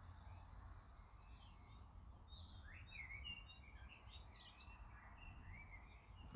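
Faint chirping of several small birds over a low steady rumble, busiest from about two to four and a half seconds in.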